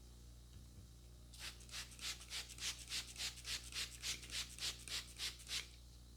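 Hands rubbing briskly over hair and scalp in a head massage: about fifteen even strokes, roughly three a second, starting about a second in and stopping shortly before the end.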